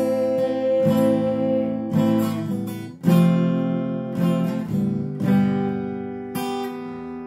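Acoustic guitar strummed slowly: about seven chords, roughly one a second, each left to ring, the playing growing softer toward the end.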